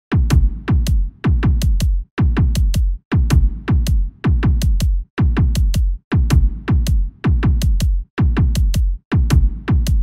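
Background music with a steady beat and heavy bass, its pattern repeating about once a second.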